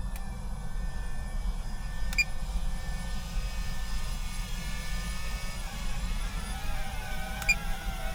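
DJI Avata 2 FPV drone's propellers whining, the pitch wavering and shifting as it flies, over a steady low rumble. Two brief beeps, one early and one near the end.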